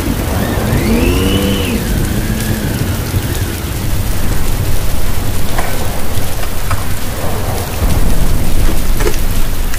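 Heavy rain pouring on a wet street over a deep, steady rumble. In the first two seconds a whine rises and falls, and a few short sharp clicks sound in the second half.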